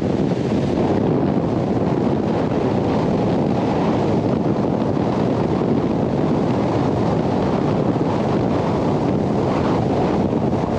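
Steady wind noise buffeting the microphone of a bass boat running at speed, with the rush of the hull over the water underneath.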